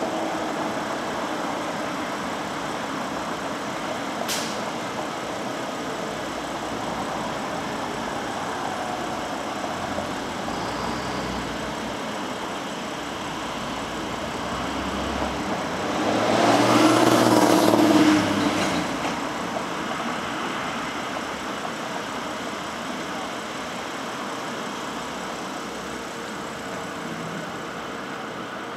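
Downtown street traffic at an intersection: a steady hum of passing and waiting vehicles. About halfway through, one louder vehicle passes, swelling and fading over about three seconds. A single sharp click comes about four seconds in.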